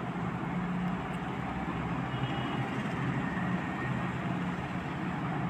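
Steady background noise: a low hum with hiss, even throughout, with no distinct events.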